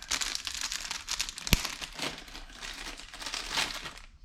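Plastic packaging crinkling and rustling as it is handled, with one sharp click about a second and a half in.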